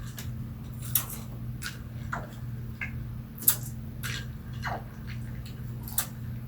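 Small scattered clicks, taps and faint water drips as a tiny plastic toy water bottle is filled and handled, over a steady low hum.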